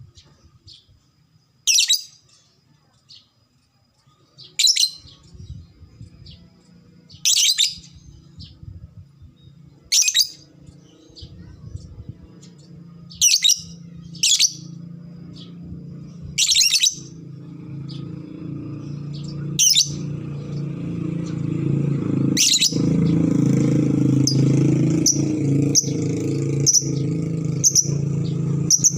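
Lovebird giving short, shrill calls, one about every three seconds, turning to quicker short chirps near the end. A low engine hum comes up partway through and grows louder.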